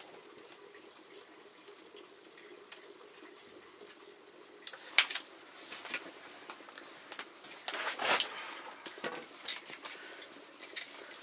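Steady breathy rush of someone blowing on the smouldering embers of a wood fire to get it to catch. About five seconds in, sharp knocks and cracks begin as sticks of firewood are handled and laid on the hearth, with the loudest one about eight seconds in.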